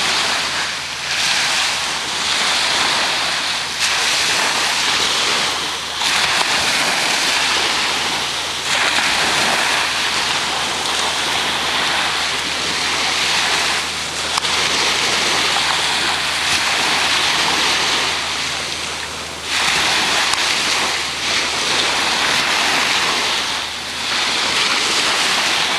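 Ocean surf washing: a loud, steady hiss of water that swells and briefly dips every few seconds.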